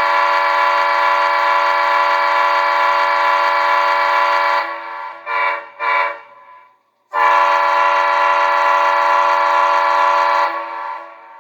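CSX freight locomotive's air horn sounding a loud chord in a long blast, fading with two brief swells of echo, then a second long blast that trails away near the end.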